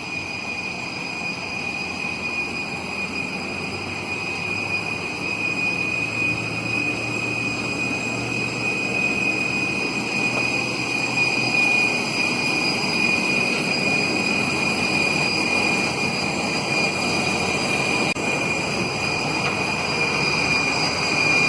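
Steady high-pitched whine over a rushing hum from a parked airliner at the gate, growing gradually louder.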